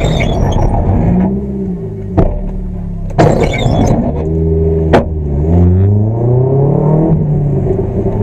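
Car engine heard from inside the cabin, running and revving up and down as the car drives off, with longer rising climbs in the second half. A few short sharp knocks break in, about four in all.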